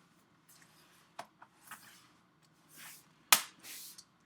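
A cover being slid back into place and handled: light clicks and scraping, with one sharp click a little over three seconds in.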